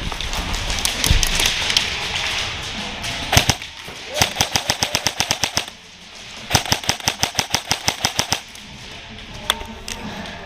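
Airsoft rifles firing rapid full-auto bursts of sharp cracks, about eight shots a second, in two runs of under two seconds each after about four seconds. Before them come a hiss-like rustle with scattered shots and a loud double crack.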